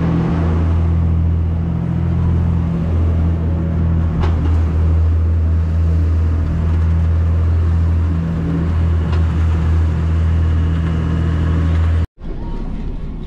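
Engine running steadily at constant speed, a loud low hum; it cuts off abruptly near the end.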